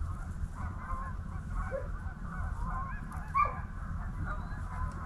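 A flock of geese honking, many short calls overlapping one another without a break, over a steady low rumble.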